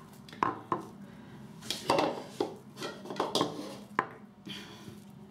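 Shaving brushes set down one after another on a hard countertop, their handles knocking against the surface in a series of sharp, separate clacks.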